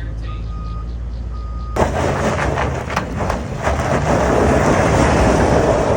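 A vehicle's high reversing beep sounding about once a second over a low engine hum. About two seconds in it gives way abruptly to loud, dense vehicle noise with several sharp clanks and knocks, typical of a truck straining to move a heavy load.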